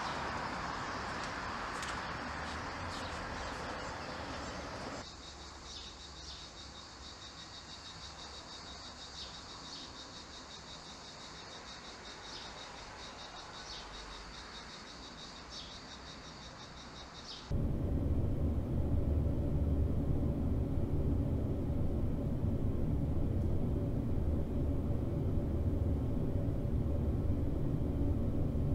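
Ambient sound in three cut-together parts. First a soft hiss, then a steady high chirring of insects with small pulses for about twelve seconds. It cuts off suddenly into a steady low rumble.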